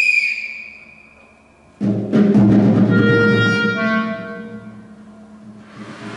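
A high held clarinet note fades away. About two seconds in comes a sudden loud percussion stroke: a deep drum hit together with ringing metallic tones that die away over a couple of seconds. A soft hiss comes in near the end.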